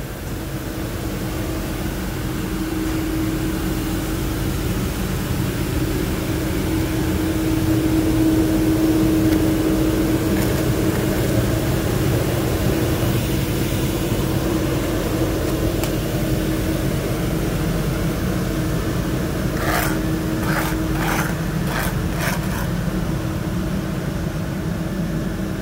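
An engine runs steadily with an even hum, swelling a little about a third of the way in. About three quarters of the way in, a quick run of five or so sharp knocks is heard.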